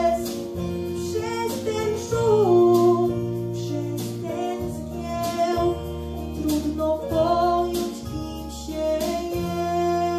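Young girl singing into a handheld microphone over an instrumental backing track, holding long notes that glide between pitches.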